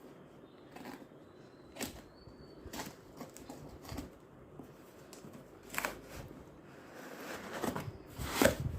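Packaging being handled and opened: scattered crinkles, clicks and rustles, busier near the end.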